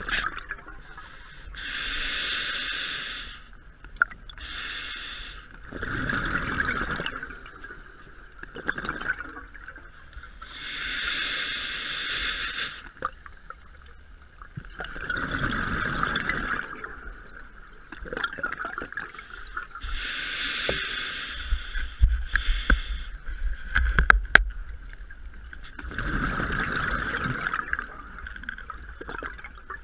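Diver breathing underwater on a scuba regulator: hissing inhalations alternating with bubbling exhalations, about three slow breaths. A steady high whine runs underneath, with a few sharp knocks in the later part.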